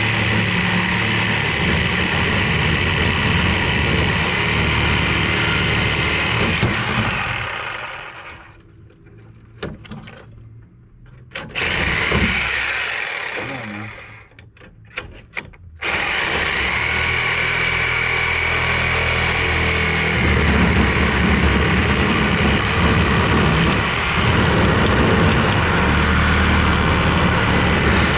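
A power tool running in long stretches, working on the rusted fasteners of an air-conditioning unit. It stops about 7 seconds in, gives a few short bursts, and runs again steadily from about 16 seconds.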